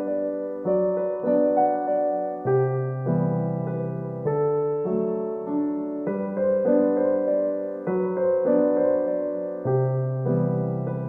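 Background music: a gentle solo piano piece, notes and chords changing about every half second to second.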